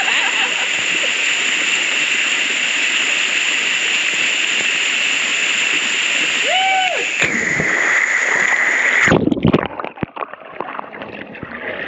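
Steady, loud rush of a waterfall pouring into a pool. About nine seconds in, the rush cuts off abruptly and close, uneven splashing and sloshing of water takes over.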